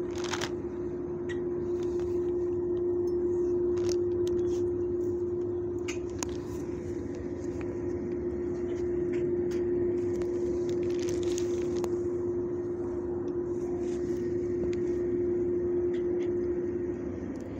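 Steady mechanical drone with one constant mid-low tone over a low rumble, unchanging throughout, with faint scattered clicks and taps.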